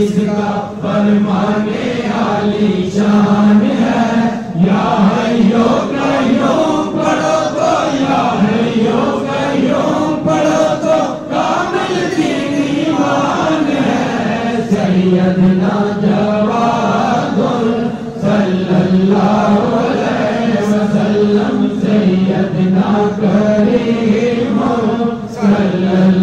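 Male voices chanting a devotional chant in long drawn-out phrases that slowly rise and fall in pitch, with brief pauses for breath every few seconds.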